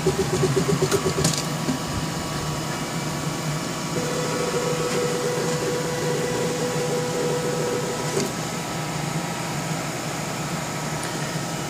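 Stepper-driven linear axis on a wooden frame moving its carriage when the power is switched off: an irregular rattle at first, then the stepper motor whining steadily for about four seconds from about four seconds in, over a steady hum of fans.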